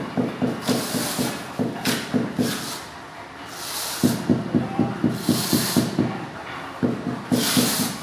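Rapid runs of dull taps, several a second, as a large ceramic floor tile is patted and pressed down by hand to bed it into tile adhesive, with short scraping hisses in between.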